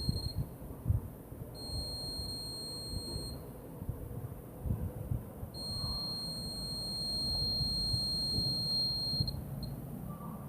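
An Arduino security alarm's buzzer sounding a steady high-pitched tone in three stretches: a short one at the start, one of nearly two seconds, then one of nearly four seconds, each time the alarm is set off. Faint low knocks and rumble sit underneath.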